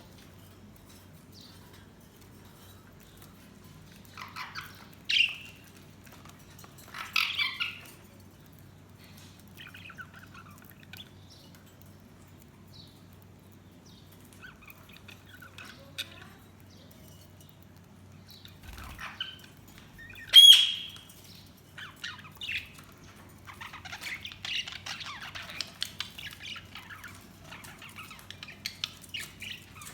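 Budgies calling: scattered short squawks and chirps, one loud sharp whistled call about two-thirds of the way in, then steady chattering near the end.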